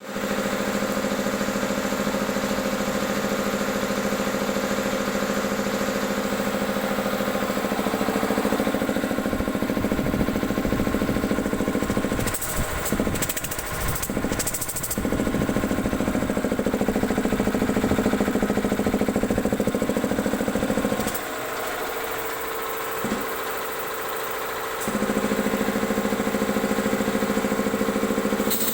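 Ingersoll Rand air compressor running with a steady, fast-pulsing mechanical drone. The sound breaks up briefly a few times near the middle, later drops to a quieter run for a few seconds, then comes back to full strength.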